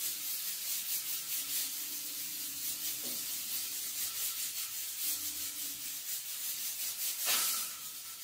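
Steady hiss of steam from a pressure cooker on a lit gas stove burner, fluctuating slightly, with a brief swell near the end.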